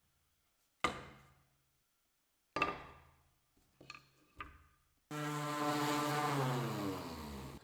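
Two sharp knocks and a few lighter taps, then a small power tool's motor starts abruptly about five seconds in and runs with its pitch sliding slowly down before it cuts off.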